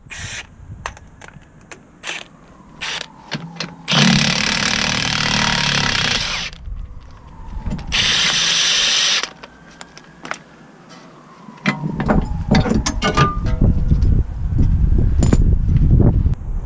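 Mechanic's tools at work on a car: scattered clicks and knocks, then two sustained bursts of a power tool running, the first about two and a half seconds long and the second shorter. In the last few seconds comes a low rumble mixed with clatter.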